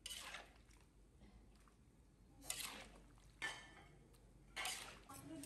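Metal spatula scraping and stirring through beef stir-fry in a wok: four brief strokes with near silence between them.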